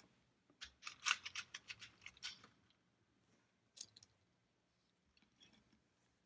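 A quick run of small, crisp snips and clicks from hand work on the workbench, about ten in two seconds, then a single click and a few faint ticks.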